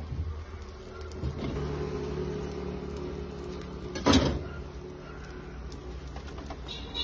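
A steady low hum sets in about a second in, with one sudden knock or clatter about four seconds in, while pav buns are pressed onto a greased pan on an electric cooktop.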